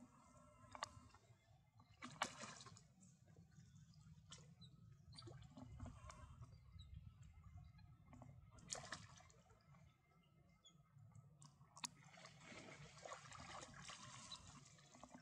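Faint water sloshing and splashing as a macaque swims through a pond, with a few sharp clicks scattered through it.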